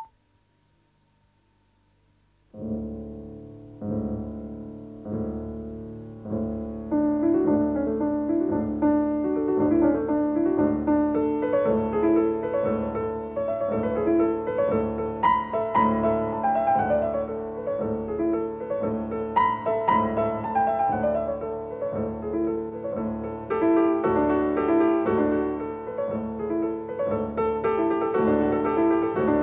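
Solo piano music starting after about two and a half seconds of near silence: a few spaced notes at first, then fuller chords over a steady repeating bass.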